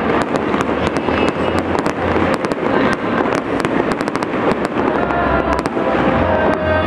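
Aerial fireworks bursting overhead: a dense, continuous run of sharp cracks and pops over a low rumble of explosions.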